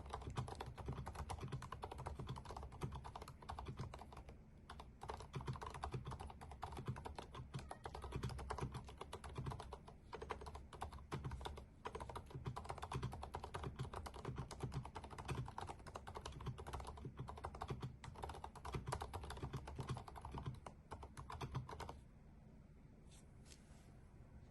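HHKB Studio keyboard being typed on quickly and continuously, a dense run of key clicks that stops about 22 seconds in, with a few single key presses after that.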